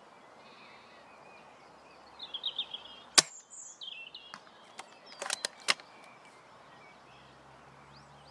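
A single sharp shot from a Novritsch SSG24 spring-powered bolt-action airsoft sniper rifle firing a BB, about three seconds in, followed a couple of seconds later by a short cluster of quieter clicks.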